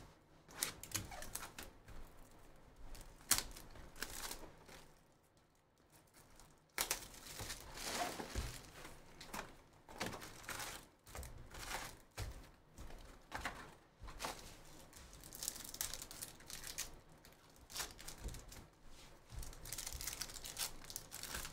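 Hands handling and opening a trading-card box, with irregular crinkling, rustling and clicking of the wrap and cardboard, then tearing open a card pack wrapper near the end. There is a pause of about two seconds around five seconds in.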